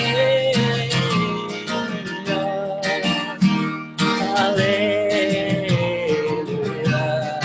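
Acoustic guitar strummed and picked, carrying the instrumental close of a hymn, with a held melody line over the chords.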